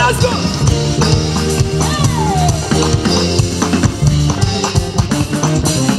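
Live praise band playing an upbeat groove: a drum kit keeps a steady beat under deep bass notes and held keyboard chords.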